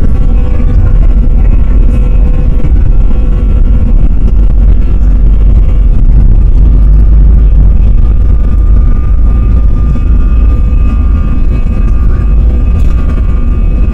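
Airliner jet engines at takeoff power heard from inside the passenger cabin during the takeoff roll: a loud, steady rumble with a steady whine over it.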